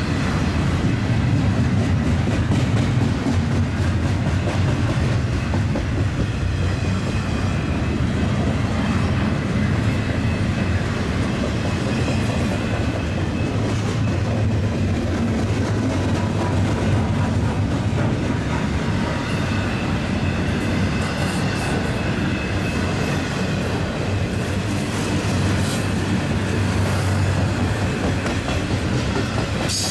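Union Pacific double-stack container train rolling past at close range: a continuous loud noise of steel wheels on the rails as loaded well cars go by.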